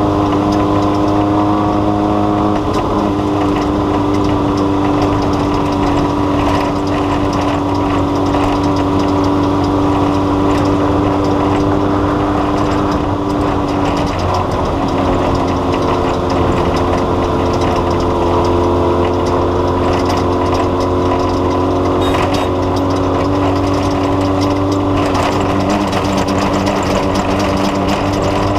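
An engine running steadily at a constant speed, its pitch stepping down slightly about three seconds in and again about halfway through.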